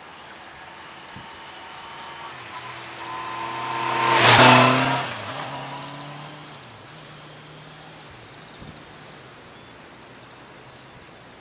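Honda CBR650F's inline four-cylinder engine on a motorcycle pass-by: the engine note grows louder as the bike approaches, is loudest about four and a half seconds in as it passes close, then drops in pitch and fades as it rides away.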